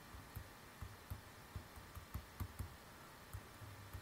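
Faint, irregular taps and clicks of a stylus writing on a tablet.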